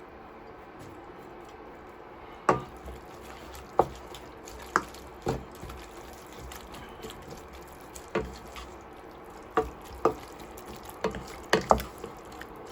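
Cooking utensil knocking and clinking against a pan while stirring crumbled feta into a thick, creamy filling. About a dozen irregular knocks begin a couple of seconds in, the loudest near the end.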